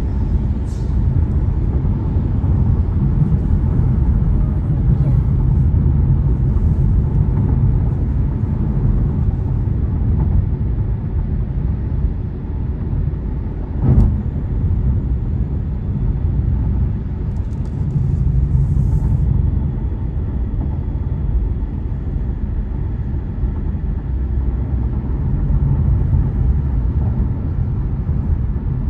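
Steady low rumble of road and tyre noise inside the cabin of an Ora Good Cat electric car cruising on a highway, with no engine note. A single sharp click sounds about fourteen seconds in.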